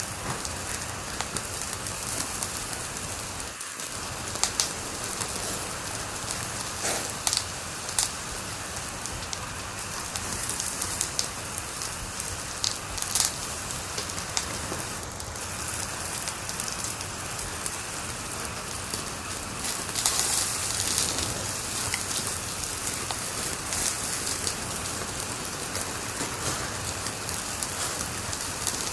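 Wood fire crackling in a fireplace: a steady hiss with irregular sharp pops and snaps, a few of them louder than the rest.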